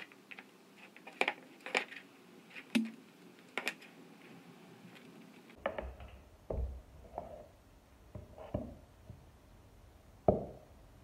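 Scattered light clicks and knocks of small wooden pieces and tools being handled and set down on a wooden workbench, with a louder knock near the end.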